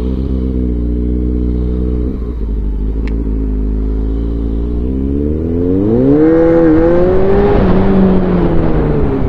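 Motorcycle engine running at low, steady revs, then revving up as the bike pulls away a little past halfway, with a brief dip in pitch before the revs hold high near the end; wind noise rises with the speed.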